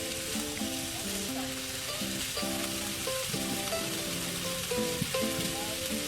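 Vegetables for pancit sizzling in a hot electric skillet, a steady frying hiss, with background music playing a melody of short stepped notes over it.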